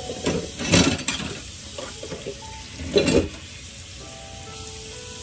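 Top sirloin steak sizzling in an electric smokeless grill with its glass lid on. Two louder short noises cut in, about a second in and about three seconds in.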